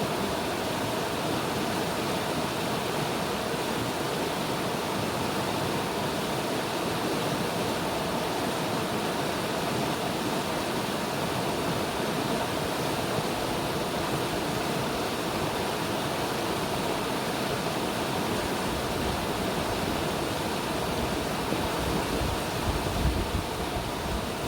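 River water rushing steadily. Low gusts of wind buffet the microphone over the last few seconds.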